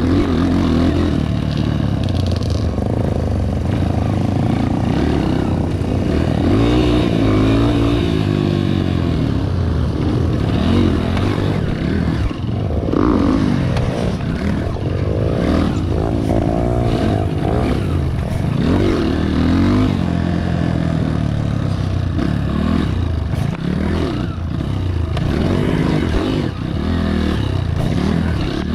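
Honda CRF230 dirt bike's single-cylinder four-stroke engine running hard under riding, its pitch rising and falling over and over as the throttle opens and closes and the gears change.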